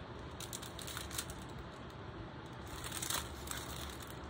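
Clear plastic protective film on a diamond painting canvas crinkling as the canvas is lifted and bent by hand, with scattered crackles early on and a louder crackle about three seconds in.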